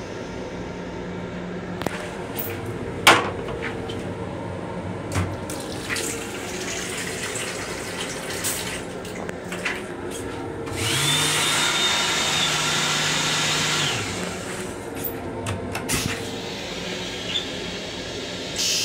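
Train restroom sink tap running for about three seconds, with a steady low hum and a high whine, then cutting off sharply. Scattered clicks and knocks come before and after it, over the steady running rumble of the railcar.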